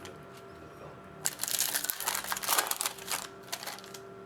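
Rustling and crinkling of trading cards and pack wrapping being handled, a dense scratchy burst of about two seconds starting a little over a second in, over a faint steady hum.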